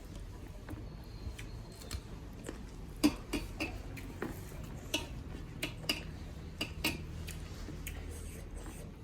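Scattered light clicks and taps of plates and bowls being handled during a meal, the sharpest about three seconds in, then several more over the next few seconds.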